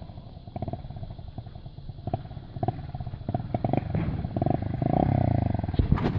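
Small motorcycle engine running as the bike rides up and passes close by, getting louder toward the end, with a sharp click just before the end.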